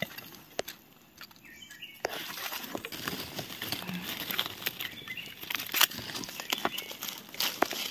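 Dry leaf litter rustling and crackling with sharp snaps as it is disturbed underfoot or by hand. It is sparse for the first two seconds, then becomes a steady, busy rustle.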